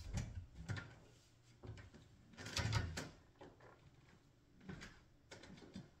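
Faint household handling noise: scattered soft knocks and bumps, with one louder clatter lasting about half a second, two and a half seconds in, like a drawer or cupboard being worked while fetching a towel.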